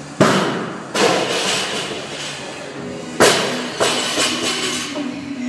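Loaded barbell with bumper plates dropped onto a rubber gym floor: a heavy thud about a quarter second in, a second thud about a second in, and another loud thud with a smaller knock just after three seconds, each with a short ringing tail. Background music plays under it.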